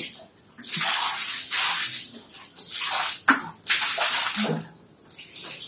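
Water poured from a plastic bucket splashing onto a rough concrete floor, in several separate pours with short pauses between them.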